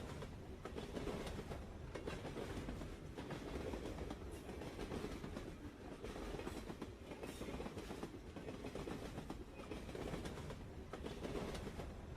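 Passenger train running on the rails: a steady rumble with the clatter of the wheels over the rail joints.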